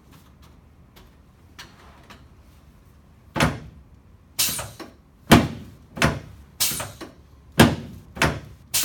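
A series of loud, sharp thumps on a chiropractic treatment table during a lower-back adjustment, about one every second or a little faster, starting about three seconds in after a few faint clicks.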